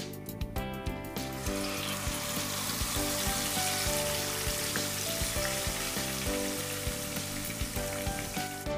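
Yogurt-marinated mutton hitting hot oil in a kadai: a steady frying sizzle that starts about a second in and fades near the end, over background music with a steady beat.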